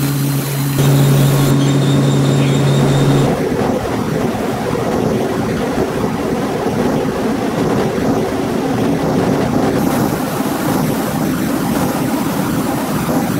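Steady machinery noise in a softboard mill: a steady low hum over the roller conveyor carrying board sheets, changing about three seconds in to a steady rushing rumble beside the board dryer.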